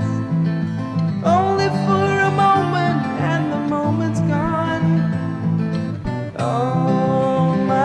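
Background music: fingerpicked acoustic guitar under a melody of long, wavering held notes.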